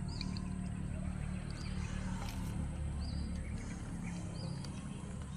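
A bird repeats a short, high chirp several times at fairly even spacing over a steady low rumble.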